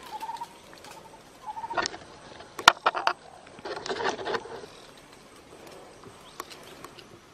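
A bird's short trilled calls, then several sharp cracks and a burst of rustling as branches and leaves are shaken in a tree.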